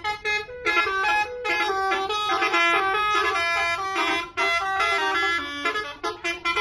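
Bus telolet horn playing a quick melody of stepped notes, with a few short breaks between phrases.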